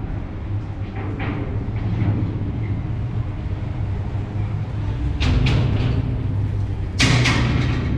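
Steady low rumble resonating inside a long vaulted pedestrian tunnel, with two brief louder rushing noises, about five and seven seconds in.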